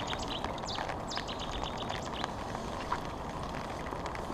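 Steady rain falling on a fishing umbrella. Over it come two bursts of rapid high ticking and a few short falling chirps.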